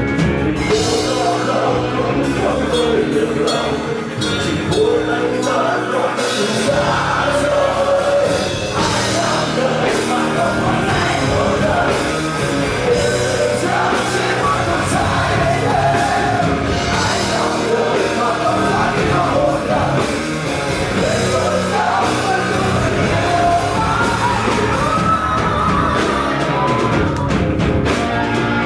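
A rock band playing live, with a singer's voice, partly yelled, carrying over the full band sound.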